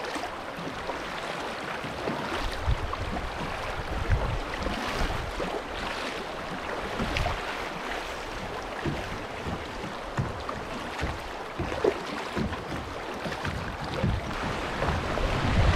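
Kayak paddle blades dipping and splashing in flowing creek water over the steady rush of the current, with wind buffeting the microphone in irregular low thumps.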